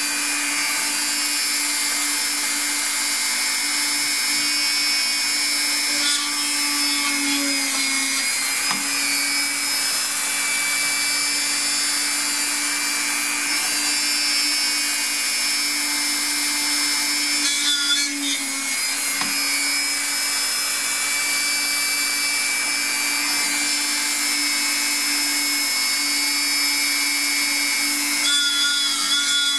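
Dremel rotary tool in a drill press stand running continuously at high speed with a steady whine. It drills holes through small pieces of cured polymer clay, and its pitch wavers briefly a few times as the bit is pressed into a piece.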